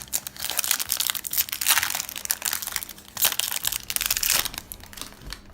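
Foil Yu-Gi-Oh booster pack wrapper crinkling and crackling as it is handled and pulled open, in uneven spells of rustling.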